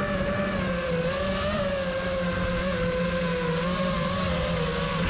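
Propellers and motors of a 5-inch FPV quadcopter buzzing in flight, one steady pitch that wavers slightly up and down with throttle.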